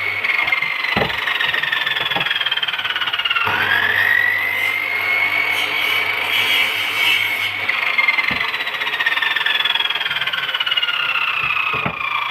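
Electric power tool motor whining steadily as it works wood, its pitch sagging under load, dipping sharply about three seconds in and climbing back, then slowly sagging again near the end. A few short low knocks come through.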